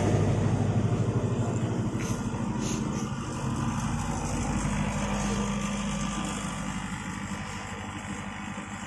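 A 60 kVA generator's engine running with a steady low hum, growing gradually fainter.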